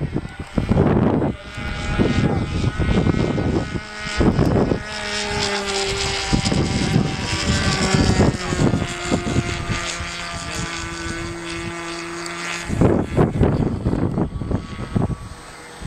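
Radio-controlled model airplane's motor droning steadily in flight, its pitch stepping up and down a few times. Gusts of wind buffet the microphone near the start, about four seconds in and again near the end.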